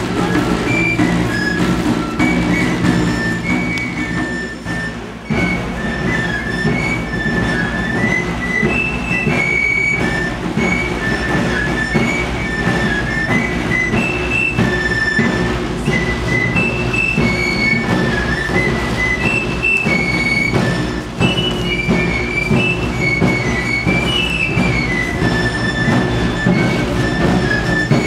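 Provençal galoubet and tambourin playing a lively folk dance tune: a shrill, high piped melody of quick notes over a steady rattling beat on the long snare drums.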